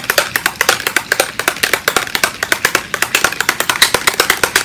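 A small bottle of metallic alcohol-ink mixative being shaken hard, its loose mixing ball rattling inside in a rapid, steady clicking of about ten clicks a second, which mixes the settled pigment back in.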